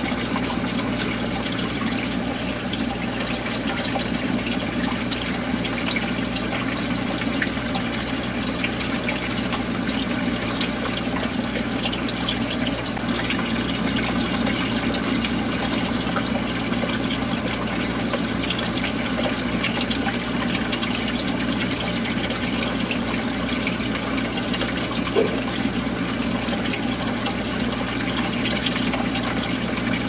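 Steady running, trickling water of a saltwater reef aquarium's circulation, with a faint low hum underneath and one brief tick late on.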